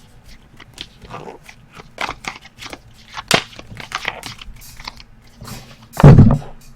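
Trading-card pack wrappers and cards being handled: scattered crinkling and sharp clicking from tearing and sorting packs. One loud thump comes about six seconds in.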